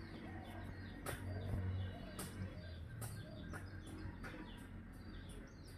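Black rabbit biting and chewing grass stalks, crisp snaps about once a second, with small birds chirping faintly in the background.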